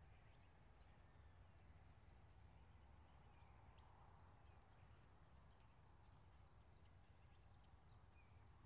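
Near silence outdoors: faint, scattered high chirps of small birds, thickest through the middle and later seconds, over a low steady rumble.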